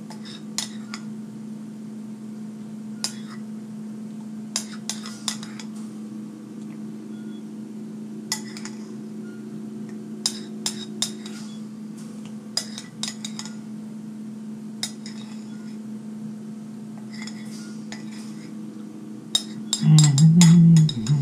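A metal spoon clinking and scraping against a bowl of ice cream, with sharp clicks every second or so over a steady low hum. Near the end comes a short, loud, low voice sound from the eater.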